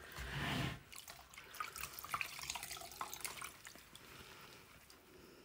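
Water pouring and dripping back into a plastic bucket as wet wool locks are squeezed out by hand. A short gush comes in the first second, then scattered drips and small splashes that fade toward the end.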